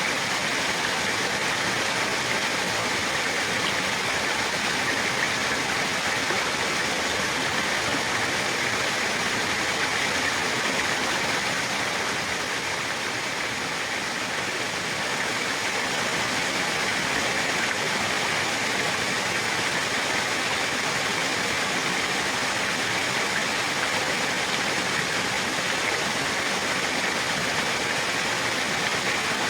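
Flowing water rushing steadily, an even hiss with no breaks or splashes standing out.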